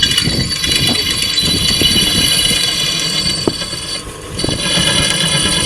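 A small electric power tool running with a high, steady whine over light clattering. It stops briefly about four seconds in and starts again.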